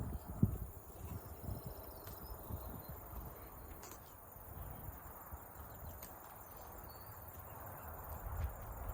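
Rural outdoor ambience: faint bird chirps over a low rumble, with a few soft low thumps near the start.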